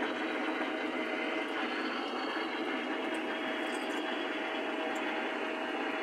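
Metal lathe running while a large twist drill bores into a spinning metal spacer: a steady machine whir with a constant hum under it.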